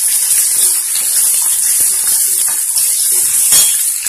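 Diced carrots, potatoes and peas sizzling in oil in an aluminium kadai while a steel ladle stirs them, with short scrapes and clinks of the ladle on the pan and one louder clink about three and a half seconds in.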